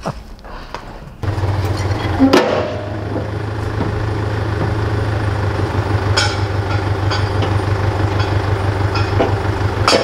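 Mitsubishi truck's engine starting up about a second in and then idling steadily with a low hum, with a few sharp clanks over it.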